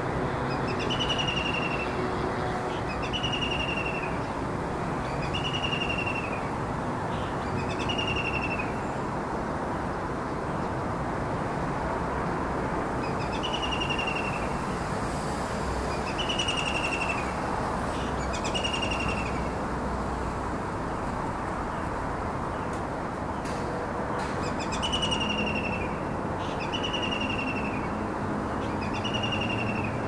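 White-throated kingfisher calling from a perch: short, falling whistled notes repeated every second or two, in three bouts, over a steady low background rumble.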